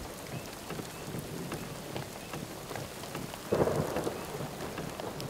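Steady rain with many sharp drop ticks. About three and a half seconds in, a sudden louder rush of noise rises over it and fades within about half a second.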